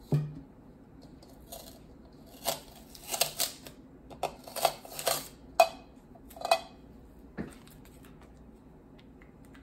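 Light knocks and clatter of a clear plastic bowl and a marker being handled and set down on a tabletop: a knock at the start, then a quick string of clicks and knocks through the middle.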